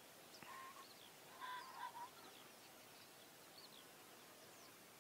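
Two short bird calls, about half a second in and again about a second later, over faint high chirping of small birds.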